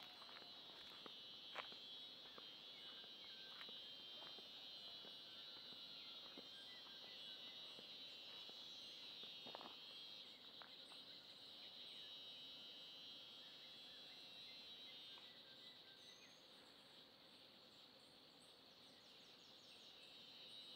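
Cicadas singing: a faint, steady, high buzz, with a few light clicks.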